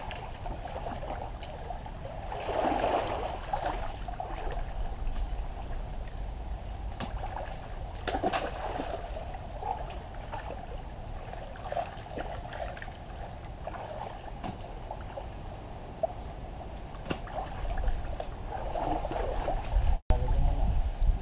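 Muddy pond water sloshing and splashing as several people wade through it and dig mud by hand, with a few sharper splashes.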